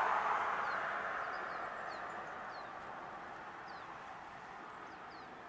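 A passing vehicle's rush fading steadily away. A small bird gives a few faint, short, high chirps over it.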